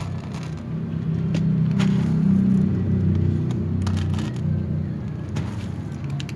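Cats crunching dry kibble, with scattered sharp clicks, over a low rumble that swells to its loudest a couple of seconds in and then eases off.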